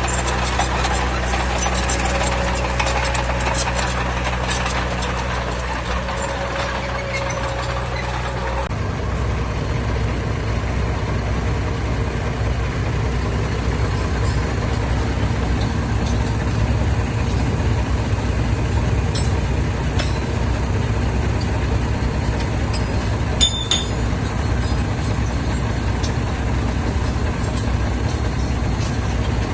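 Heavy diesel engines of earthmoving machinery running steadily. About 9 s in, the even engine note gives way to a rougher, noisier low rumble, and a single short click comes near the end.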